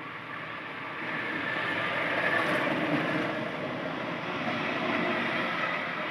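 A passing vehicle's noise, building over the first two seconds and then slowly fading.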